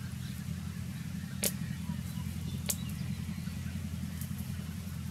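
Wood fire crackling under a clay pot, with two sharp pops about a second and a half and just under three seconds in, over a steady low hum.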